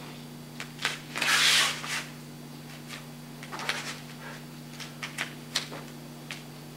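Martial arts uniform swishing and rustling and bare feet moving on foam floor mats during a karate form, a scatter of short swishes and soft taps. The loudest is a hiss of about a second, just over a second in. A steady low hum runs underneath.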